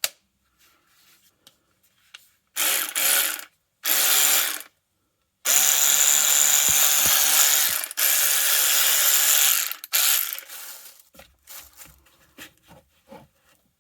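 VTEK 16.8V cordless electric ratchet wrench running free with no load: three short trigger pulls, then a longer run of about four seconds with a steady motor whine. It is a little bit noisy.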